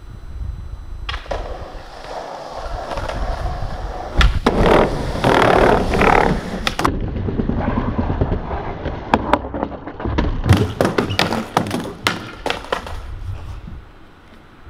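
Skateboard wheels rolling over pavement and wooden decking, with repeated sharp clacks and slaps of the board hitting the ground as tricks are popped and landed.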